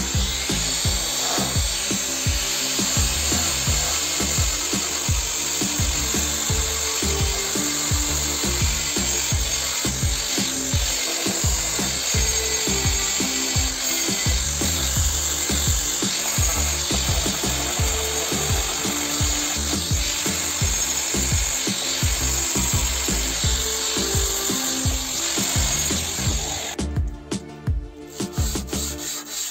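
Small angle grinder with a sanding disc grinding the flat of a steel knife blade, running steadily, then stopping about 27 seconds in. Background music with a steady beat plays under it.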